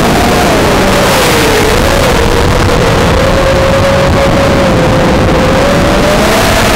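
Multirotor drone's electric motors and propellers whining loudly, over wind hiss on the onboard microphone. The pitch rises just after the start, dips, holds steady, then rises again near the end as the throttle changes.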